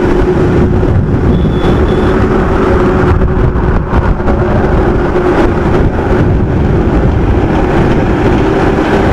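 Motorcycle cruising at about 70 km/h: wind rushing over the microphone with a steady engine note underneath.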